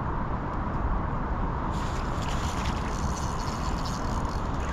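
Steady rush of river water with wind rumbling on the microphone. A little under two seconds in, a brighter hiss with fine rapid crackling joins in.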